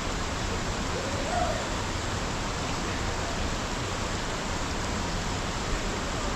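Steady rushing of a jungle river or waterfall, an even hiss that doesn't change. A faint voice shows briefly about a second and a half in.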